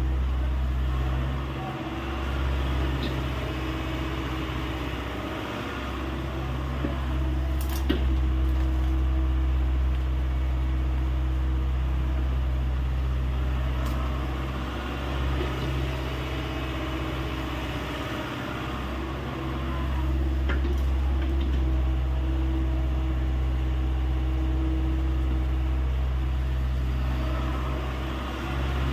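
Hyundai 85A excavator's diesel engine running steadily, its level dipping and rising as it works, with one sharp knock about eight seconds in.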